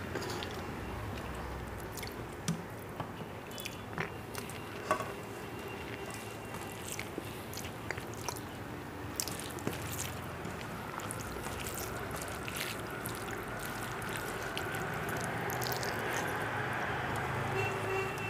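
Fingers squishing and mixing rice with curry on a steel plate, with chewing and scattered short clicks.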